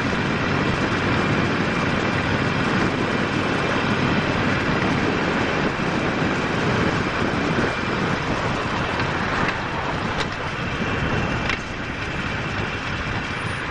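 Riding noise from a Harley-Davidson Sportster 48 under way in traffic: a steady rush of wind on the camera microphone, with the bike's air-cooled V-twin running underneath. It eases slightly near the end.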